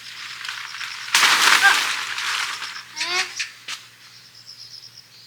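A loud rustling rush starts about a second in and lasts about a second and a half, over steady pulsing cricket chirps. A short rising vocal sound and a sharp click follow around three seconds in.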